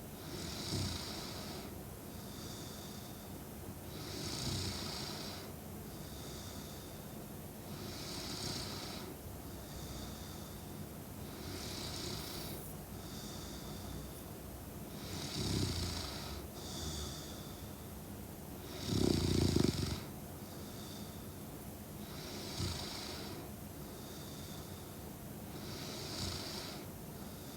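A sleeping young woman snoring steadily, with one full breath about every four seconds. Alternate breaths carry a faint high whistle. One snore about two-thirds of the way through is louder and deeper than the rest.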